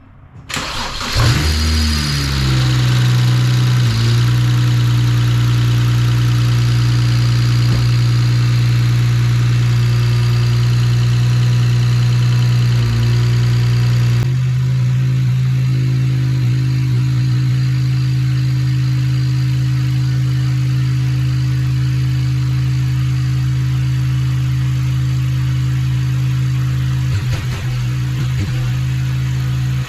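BMW N54 twin-turbo inline-six in a 335xi starting for the first time after its new 19T turbos were primed with oil: it fires about a second in with a short flare that drops back, then settles into a steady idle.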